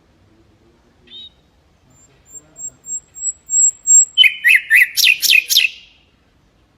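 Mangrove whistler singing: one short note, then a run of thin, very high notes that grow louder, ending in about six loud down-slurred whistles in quick succession.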